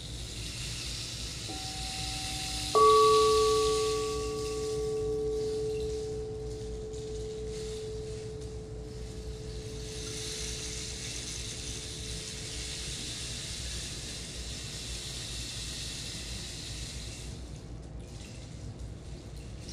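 A singing bowl struck about three seconds in, ringing with a slow fade over several seconds, with a softer held tone entering just before it. Under it runs a steady hiss of flowing water.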